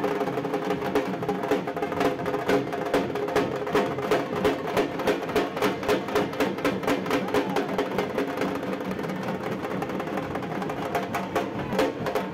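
A group of dhak drums (large barrel drums played with sticks) beaten in a fast, driving processional rhythm. Strong beats land about two to three times a second, with quick rolls between them.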